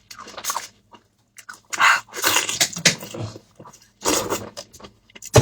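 Close-up eating sounds: irregular wet chewing, smacking and biting into braised lamb rib meat, with short clicks between pauses.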